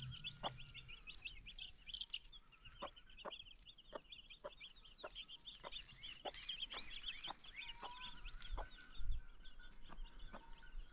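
A chick peeping rapidly and continuously in high, thin chirps, with a hen giving short single clucks. A low bump comes about nine seconds in.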